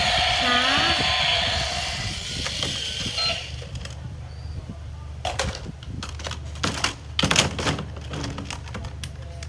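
Hard plastic toy animal figures clattering and knocking against each other in a plastic bin as they are rummaged through, with several sharp knocks between about five and seven and a half seconds in. A music track plays for the first three seconds or so.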